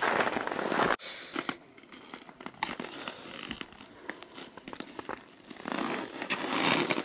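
Snow crunching and crinkling under ski boots and skis, with scattered light clicks. A loud rustle cuts off suddenly about a second in, and the noise swells again near the end.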